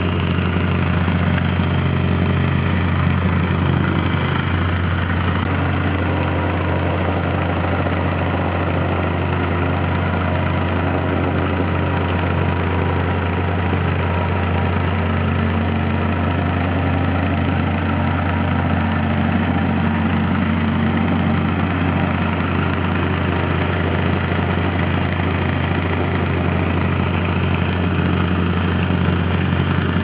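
Vibratory plate compactor running, its engine and vibrating plate making a loud, steady, even drone.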